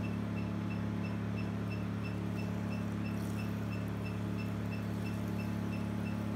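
Diode laser hair removal machine running: a steady low hum from its cooling system, with a short high beep repeating about three times a second as the handpiece fires its laser pulses.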